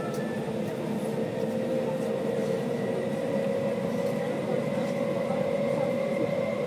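Pesa tram running, heard from inside the passenger cabin: a steady rolling rumble with a faint motor whine that slowly rises in pitch as it picks up speed.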